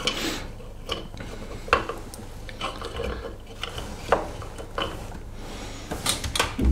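Small steel-cased AAAA battery cells, still joined in series by their tabs, clicking and clinking against each other and a wooden board as they are handled and laid out: scattered separate taps, with a quick cluster of clicks near the end.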